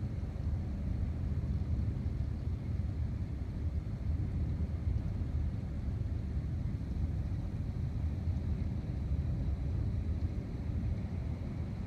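Distant thunder rumbling on continuously, a steady low rumble like a freight train going by, with no single sharp crack standing out.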